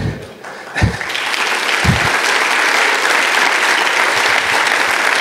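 Audience applauding, swelling about a second in and then holding steady; a few short low thumps in the first two seconds.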